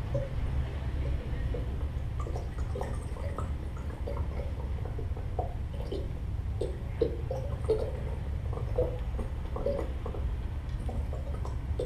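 Amplified plant material worked by hand through a contact microphone and loudspeakers: irregular small clicks, pops and dripping, squishy sounds over a steady low amplifier hum, with a couple of sharper pops around the middle.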